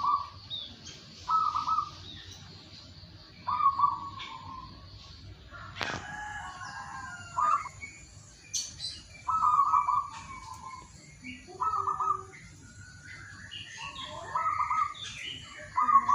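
Zebra dove (perkutut) cooing: short bursts of rapid notes repeated every one to two seconds, with small birds chirping higher in the background.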